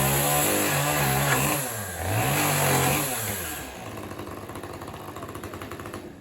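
Two-stroke chainsaw running at high revs, dipping and revving up again, then dropping to idle about three and a half seconds in, and going quiet near the end.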